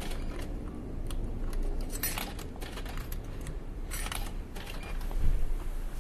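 Vending machine in use: scattered metallic clinks and coin-like rattles over a low hum, with a heavier thump about five seconds in.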